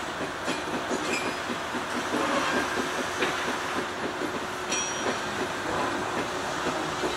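Alco 700 class diesel locomotive rolling slowly along the rails, with a rapid mechanical rumble and clanking from its running gear. Short high-pitched wheel squeals come about a second in and again near five seconds.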